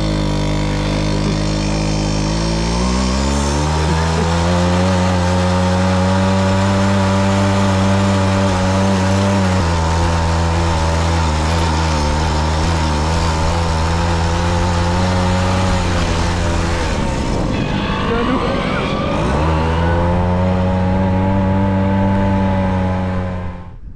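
Tomos A3 moped's small two-stroke single-cylinder engine running under way. Its pitch rises over the first few seconds as it picks up speed, then holds steady at cruising revs. Near the end the note breaks up briefly as another moped goes past, then the steady note returns and cuts off suddenly.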